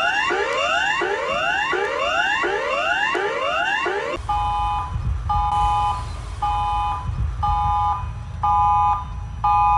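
Electronic emergency alert alarm: a rapid whooping tone that sweeps upward about twice a second, switching about four seconds in to a chord-like beep that pulses on and off about once a second over a low rumble.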